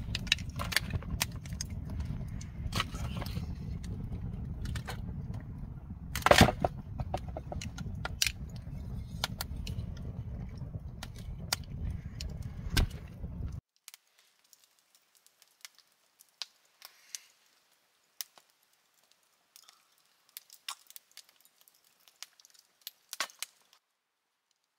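Wood fire crackling with sharp pops over a low rumble; about fourteen seconds in the rumble cuts off abruptly, leaving only scattered faint crackles and clicks.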